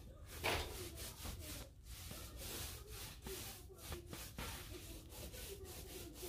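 A pencil scratching along the cut end of a wooden baseboard in many short, faint strokes, marking the profile line to follow for the coping cut.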